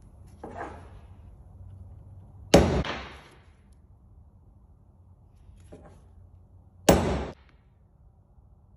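A hammer striking a steel punch held on a machined oil cap: two hard, sharp blows about four seconds apart, each ringing briefly, with a lighter tap near the start.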